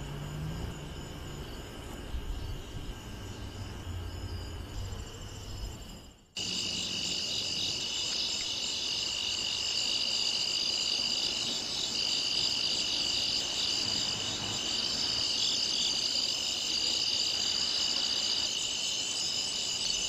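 Steady chorus of night insects trilling in several high-pitched bands. The sound drops out for a moment about six seconds in and comes back louder; before that a faint low rumble lies underneath.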